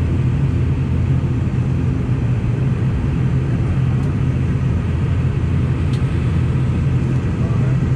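Steady low rumble of an airliner's engines, with a constant low hum and no rise or fall in level.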